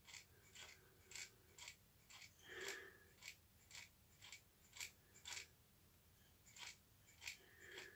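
Hand-pump spray applicator on a bottle of Toppik hair fibres, squeezed again and again to puff fibres onto the scalp: a string of short, faint puffs, about two a second, with a short pause around six seconds in.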